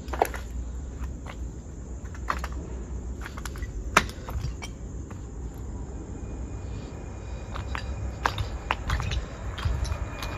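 Footsteps crunching and scraping over broken tiles and concrete rubble, with irregular sharp cracks; the loudest comes about four seconds in. Crickets chirp faintly in the background.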